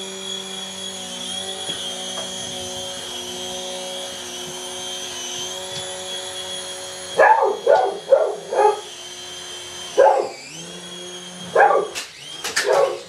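A small toy remote-control helicopter's electric motor and rotor whining steadily, dipping briefly in pitch once. About seven seconds in, a dog starts barking at it: a quick run of about five barks, then more single barks every second or so.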